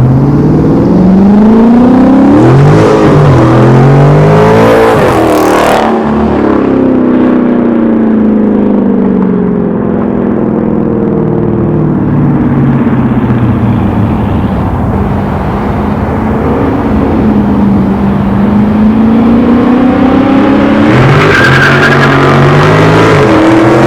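Dodge Charger Scat Pack's 392 (6.4-litre) Hemi V8 with its mufflers deleted, running loud while the car drives off. The engine note climbs hard twice in the first few seconds, falls away slowly as it eases off, then climbs again near the end.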